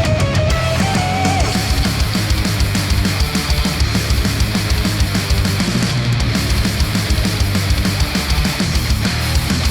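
Loud, hard-driving rock music with fast, dense drumming and heavy bass. It is played back through headphones and picked up by microphones at the earcup.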